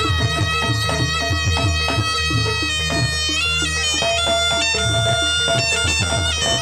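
Jaranan gamelan music: a shrill, nasal reed shawm (slompret) plays a winding melody over a busy pattern of hand-drum strokes and a steady low drone.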